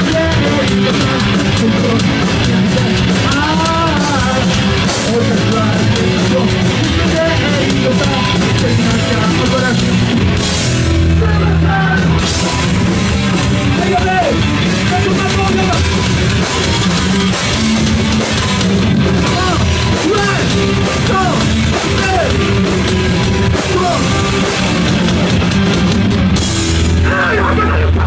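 Punk band playing live at full volume: distorted electric guitar, bass and drum kit with a vocalist shouting into a microphone. It is heard from within the crowd at a small club.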